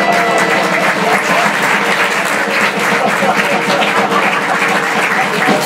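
Audience applauding, a dense steady clatter of many hands clapping, with a few voices cheering.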